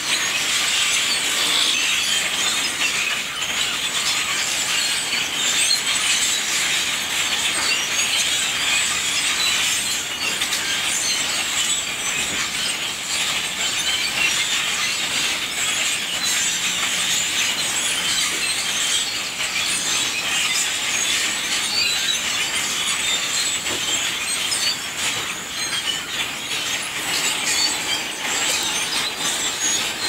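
A large flock of blackbirds calling all at once: a dense, steady chorus of many overlapping squeaks and chatter.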